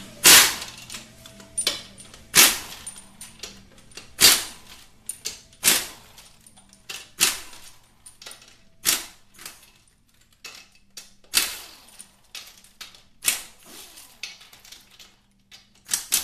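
Hand tools and steel bolts clacking on metal as the transmission's 15 mm bell housing bolts are taken out: a sharp clack every one and a half to two seconds, with lighter ticks between.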